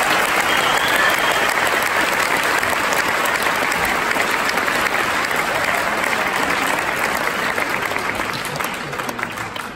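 Concert audience applauding in a hall: dense, steady clapping that slowly dies away near the end.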